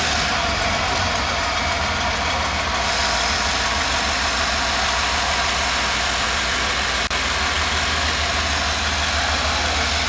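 StuG III assault gun's engine idling with a steady low rumble.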